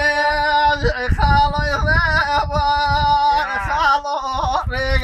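A man singing in long, held, wavering notes, with a short break about a second in and another near the end.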